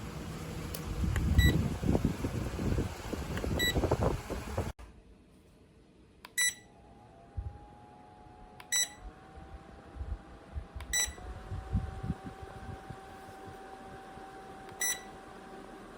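Rechargeable camping fan with a DC motor beeping at each button press. The first part has clattering handling noise between the beeps. After that the motor's steady whine steps up a little in pitch at each beep as the speed setting rises, then stops with a final beep near the end.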